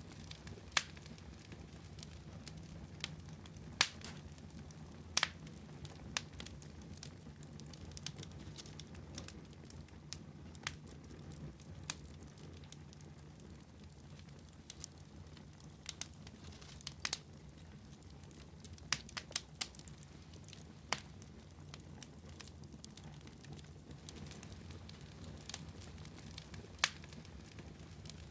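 Fire crackling in a fireplace: irregular sharp pops and snaps, a handful louder than the rest, over a steady low rumble.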